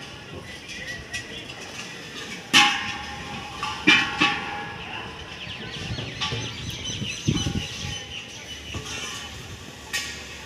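Two sharp knocks a little over a second apart, each leaving a brief ringing, with a few fainter knocks later over a steady outdoor background.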